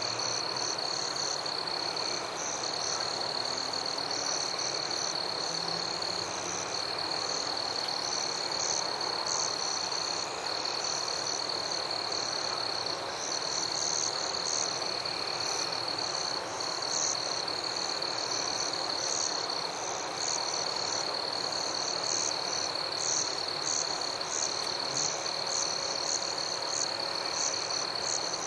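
Night chorus of frogs calling, with a steady high insect trill and rapid pulsing insect calls above it, unbroken throughout.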